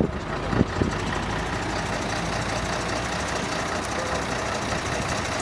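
Steady running of motor vehicle engines idling, with road noise and two short knocks in the first second.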